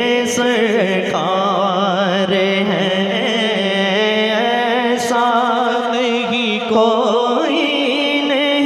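Male naat reciter singing long, wavering melodic phrases into a microphone without clear words, over a steady held drone.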